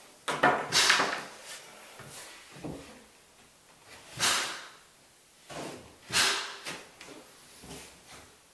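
Pneumatic pin nailer firing pins into wooden door casing: several sharp pops with a puff of air, a few seconds apart.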